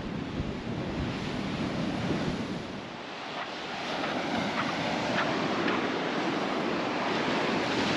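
Rough ocean surf breaking on a beach, with wind buffeting the microphone; the wash dips about three seconds in and swells again.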